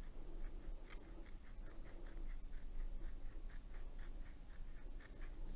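Scissors snipping along the edge of a diamond-painting canvas, a run of faint short snips about three a second.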